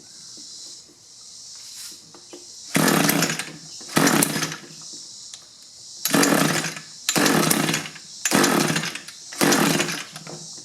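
Echo hedge trimmer's two-stroke engine being pull-started: about six pulls of the recoil starter, each a loud burst of about a second, cranking the engine without it catching and running.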